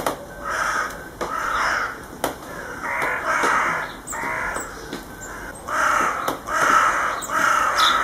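Harsh, hoarse bird calls repeated about eight times, each lasting under a second, with short gaps between them.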